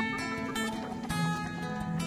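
Background music: solo acoustic guitar strumming chords, with a new chord struck about a second in.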